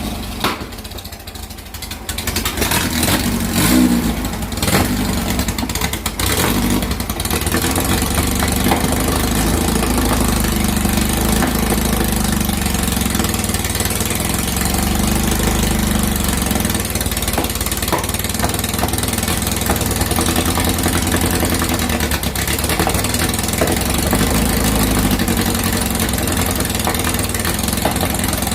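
2332cc air-cooled VW flat-four engine running with its freshly cleaned carburettors being set. It dips briefly near the start, takes a few quick revs a few seconds in, then settles into a steady idle.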